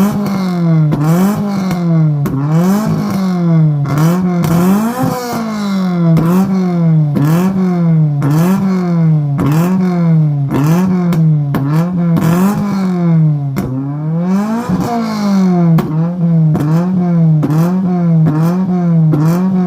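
Toyota 20-valve four-cylinder engine being revved over and over, its pitch rising and falling about once a second in a steady rhythm.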